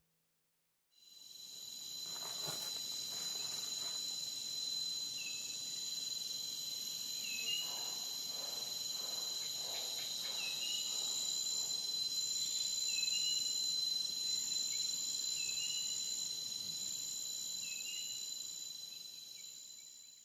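Insects trilling steadily at several high pitches, with a short chirp repeating about every two and a half seconds. The sound fades in about a second in and fades out near the end.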